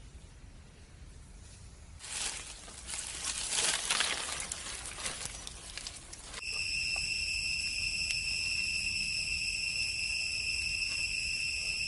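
A few seconds of crackling rustle in undergrowth. About six seconds in, a steady, shrill insect drone starts abruptly and holds at one pitch.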